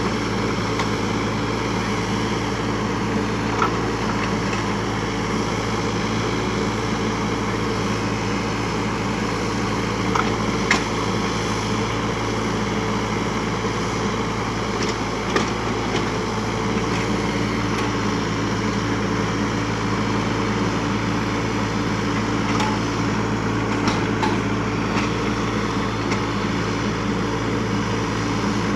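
Kubota U35 mini excavator's diesel engine running steadily while it works, with a few short sharp cracks or knocks now and then.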